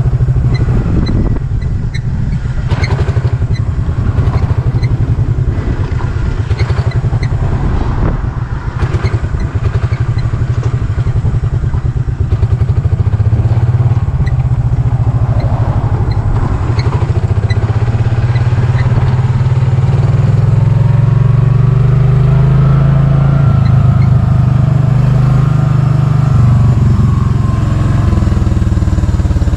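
Rented golf cart driving along a paved road: a steady, loud rumble of the cart running, with wind buffeting the open cart's microphone and scattered light rattling ticks in the first half.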